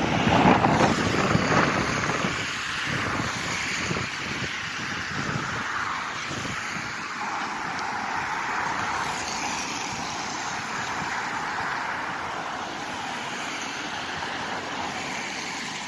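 Steady rushing noise of the swollen, fast-flowing river in flood, with wind buffeting the microphone, heaviest in the first two seconds.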